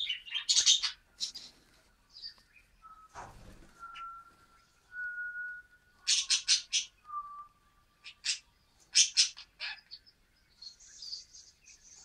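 Pet budgerigars chirping in a cage: quick bursts of sharp chirps, a few long, thin steady whistles, and fast soft chatter near the end.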